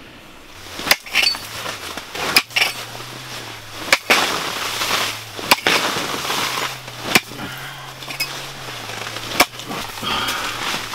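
Ice on a frozen lake being chopped through by hand to open a fishing hole: about six sharp blows, roughly one every second and a half, with scraping and crunching of broken ice between them.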